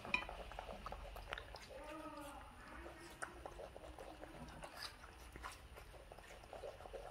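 A pet monkey gives one soft, arching cooing call about two seconds in, over faint clicks and smacks of eating.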